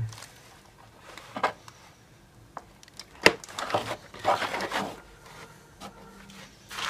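Wires and connectors being handled while a battery is plugged into a brushless motor's electronic speed controller: a few small clicks, one sharp click about three seconds in, then rustling of the wires.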